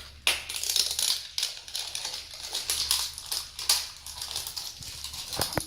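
Wrapping around an L.O.L. Surprise Under Wraps ball crinkling and crackling as it is torn and peeled off by hand, a dense run of small rustles and crackles.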